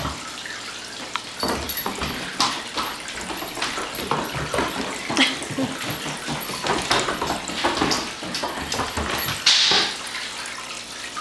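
Doberman puppy romping on a hardwood floor: irregular scuffles, clicks and knocks mixed with dog noises. A louder rush of noise comes a little before the end.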